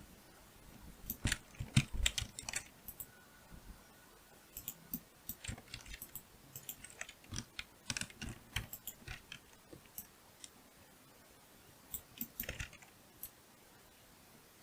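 Computer keyboard keys tapped in irregular bursts of clicks with pauses between, the loudest about two seconds in; these are shortcut keys being entered while editing a 3D model.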